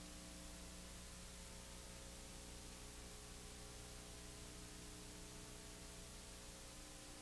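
Near silence: steady hiss with a low electrical hum.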